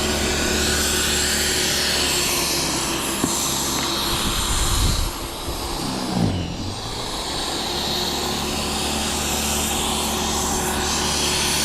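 Corded electric snow blower running steadily while clearing snow. About six seconds in, its motor note dips in pitch and climbs back up.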